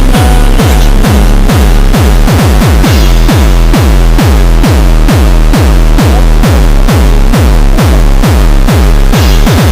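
Loud electronic dance music with a heavy kick drum on a fast, steady beat; each kick drops in pitch.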